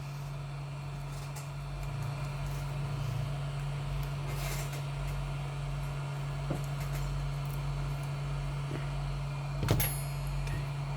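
Steady low hum with a faint click partway through and a sharper knock near the end, as a scraper pries at the glued battery of a Samsung Galaxy S9.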